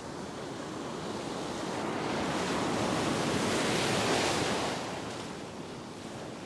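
Ocean surf: a wave breaks and its whitewater washes up the beach, swelling to its loudest about four seconds in and then fading.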